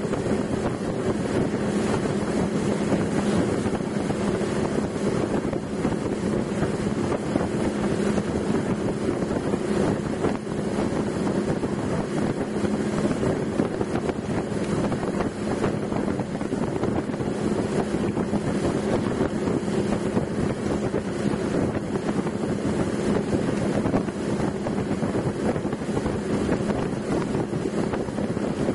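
Motorboat engine running steadily at cruising speed, a constant drone, with wind rushing over the microphone.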